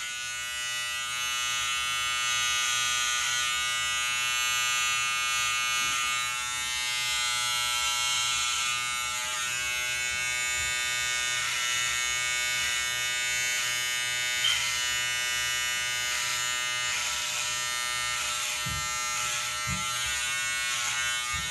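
Electric hair clippers buzzing steadily as they cut hair at the back of a man's neck.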